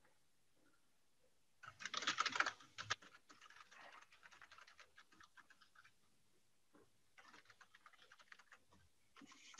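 Typing on a computer keyboard: a quick run of key clicks about two seconds in, the loudest part, then fainter, scattered keystrokes.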